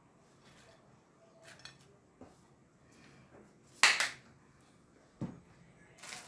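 Kitchenware being handled on a counter: a few light clicks and knocks, one sharp clatter about four seconds in, and a duller thump a second later.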